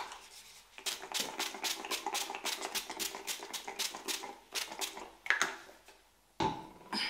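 Fingertips patting serum onto the skin of the face: quick light pats, about five a second, for some four seconds, then a single brushing stroke.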